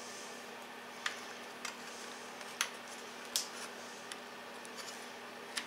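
Small plastic wire connectors and cables being handled and pushed into a CNC controller board's sockets: about half a dozen short, sharp clicks and taps spread over a few seconds, over a faint steady hum.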